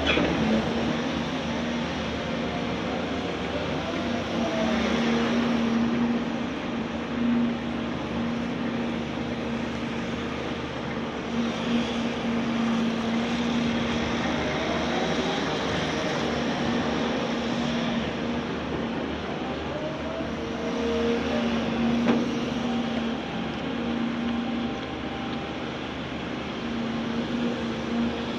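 Caterpillar hydraulic excavator running steadily under work. A whine rises and falls in pitch several times as the hydraulics move, and there are a few sharp knocks.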